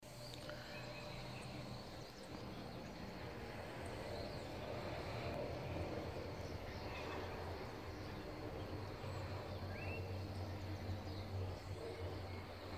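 Rural outdoor ambience: scattered faint bird chirps, with one short curved call about ten seconds in, over a steady low hum.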